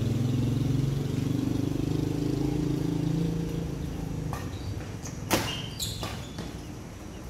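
A passing motor vehicle's engine runs loud for the first few seconds and fades out about four seconds in. Then badminton rackets strike a shuttlecock in a rally: sharp cracks, the loudest a little after five seconds and another about half a second later.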